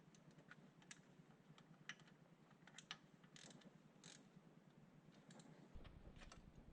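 Faint, irregular clicks and light clinks, about a dozen scattered through, over a steady low hum; a low rumble comes in near the end.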